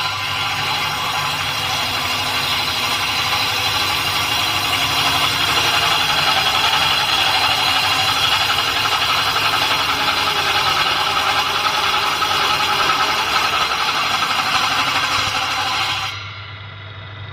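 Homemade somel woodworking saw machine, driven by a salvaged washing-machine motor, running steadily with a whine. The sound cuts off abruptly near the end.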